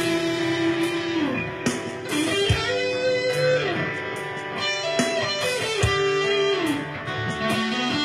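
Epiphone electric guitar playing an improvised lead in E minor over a rock ballad backing track, with long held notes and string bends that slide down in pitch over a steady drum beat.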